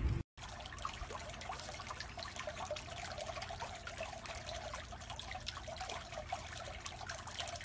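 Faint trickling of swimming-pool water, with many small ticks of drips and little splashes.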